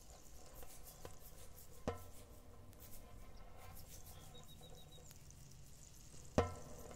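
Faint, sparse percussion hits: a sharp knock about two seconds in and a louder one near the end, each with a short pitched ring, over a low hiss.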